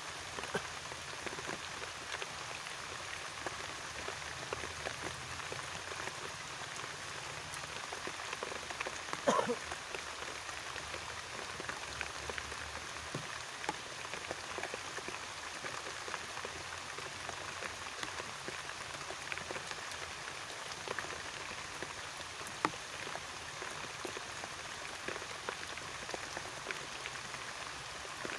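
Steady, not very heavy rain falling, a constant hiss dotted with many small raindrop ticks. A brief, louder sound cuts through once about nine seconds in.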